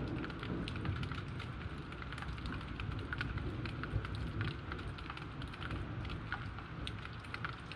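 Rain falling steadily, with many sharp drop taps close by over a low rumbling wash.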